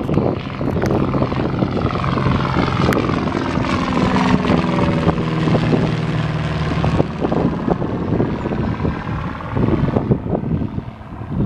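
1966 Cessna 172G Skyhawk's six-cylinder Continental O-300 engine and propeller at climb power just after take-off, passing close by. The pitch drops as it goes past, about halfway through, and the sound eases as it climbs away near the end.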